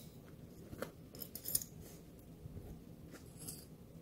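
Faint, scattered clicks and clinks of metal necklaces and pendants being handled and set down on a paper towel.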